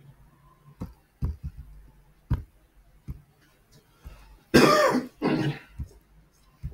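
A person clearing their throat in two loud bursts about two-thirds of the way through, after a few short, sharp clicks.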